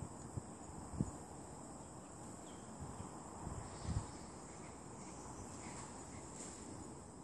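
A steady, high-pitched insect chorus keeps up over a low outdoor hiss, with a couple of short low bumps about one second and four seconds in.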